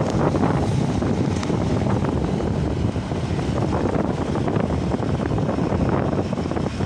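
Wind buffeting the microphone over the steady running and road noise of a motorcycle in motion.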